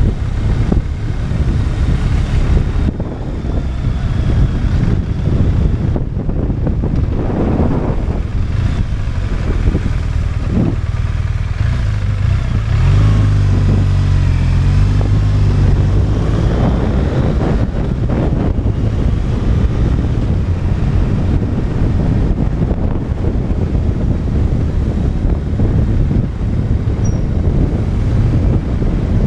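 BMW R 1200 RT's flat-twin engine running at low speed, with wind buffeting on a helmet-mounted microphone. The engine note steadies and grows louder for a few seconds around halfway through.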